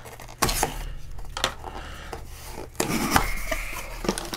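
Trading-card packaging being handled and opened: rubbing and scraping, with several sharp clicks and knocks, the loudest about three seconds in.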